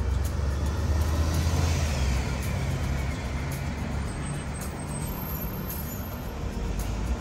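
A coach bus passing close by, its engine rumble loudest for the first two seconds or so, then fading into steady road traffic of cars and a motorbike.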